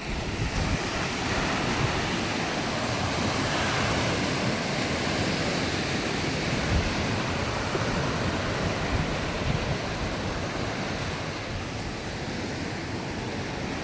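Sea surf washing onto a sandy beach: a steady wash of small waves that eases slightly toward the end.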